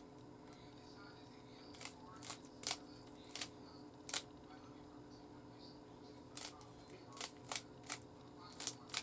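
A Rubik's cube being twisted by hand: two runs of quick, sharp plastic clicks as the layers are turned, over a steady low hum.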